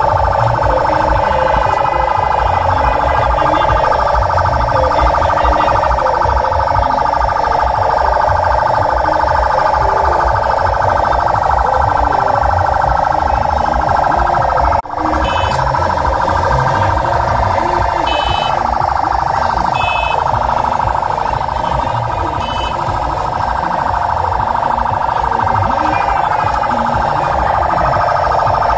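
Convoy siren blaring with a steady, barely wavering tone, over crowd voices and traffic rumble; the sound drops out for an instant about halfway through.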